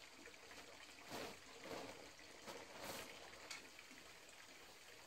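Faint hiss with a few soft crackles from a lit charcoal grill.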